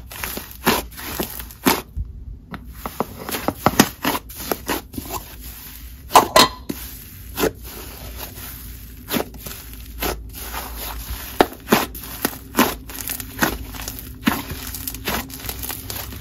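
Fluffy snow-butter cloud cream slime being stretched, pressed and squished by hand, giving irregular crackling sizzles and little pops as trapped air escapes.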